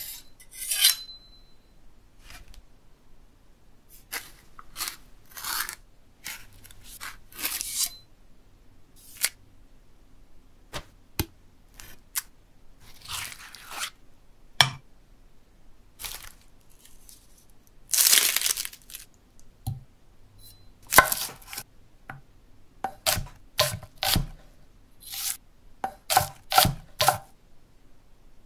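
A string of close-up kitchen sound effects. A steel knife blade is stroked on a sharpening stone with a short metallic ring. Then come separate scrapes, knocks and tearing sounds of cutting and scooping soft flesh into a stone mortar, with one longer scraping tear a little over halfway through.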